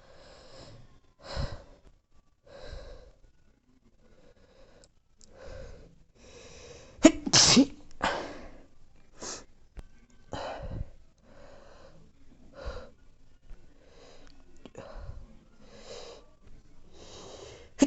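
A person sneezing again and again in a sneezing fit, short sharp sneezes with quieter breaths and sniffs between them. The loudest pair of sneezes comes about seven seconds in.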